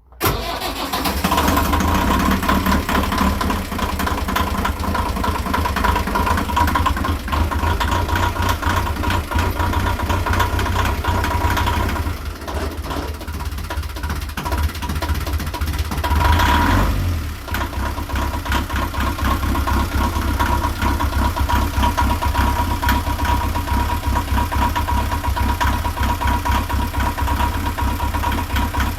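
A narrowboat's freshly refitted inboard engine running after being started, with a steady, regular chugging beat. It comes in suddenly at the start, eases a little in the middle, and rises briefly a little past halfway before settling back to a steady run.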